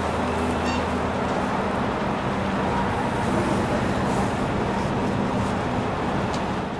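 City street traffic noise, with a vehicle engine running steadily close by. A couple of faint clicks stand out, and the sound begins to fade out at the very end.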